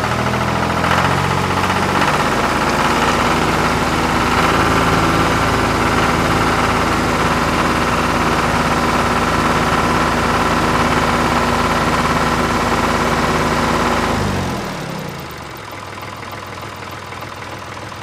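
Tractor engine idling steadily, then slowing down and cutting out about fourteen seconds in.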